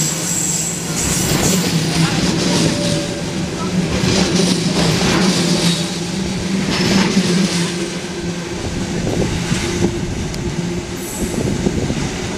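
Passenger coaches rolling past close by, with a steady rumble and the wheels clattering over rail joints. The sound drops away near the end as the last coach moves off round a curve.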